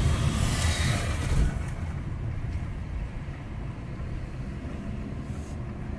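Car driving along a city street: steady low engine and road rumble. A louder rush of noise in the first second and a half fades away.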